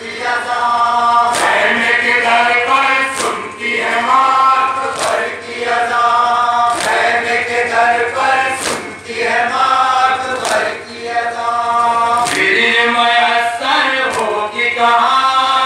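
Male voices chanting a noha in unison, with loud synchronized chest-beating (matam) strokes from the crowd about every two seconds, keeping the rhythm of the chant.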